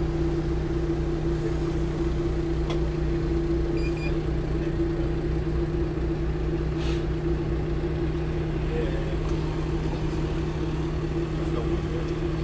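Canal tour boat's engine running steadily as the boat cruises, a constant low hum and rumble.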